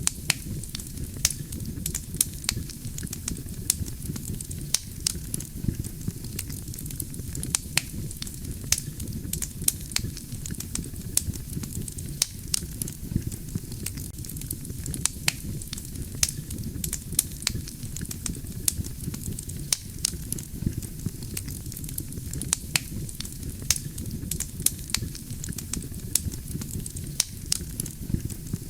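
Wood campfire burning, with a steady low rumble of flames and frequent sharp crackles and pops from the burning logs, several a second.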